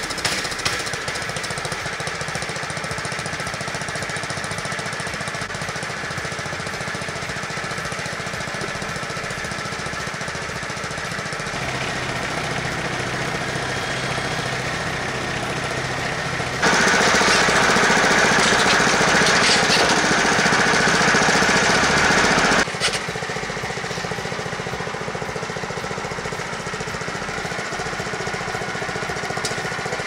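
Small gasoline engine of a Frontier OS23 portable band sawmill running steadily. About halfway through, the engine noise grows clearly louder for roughly six seconds, then drops back.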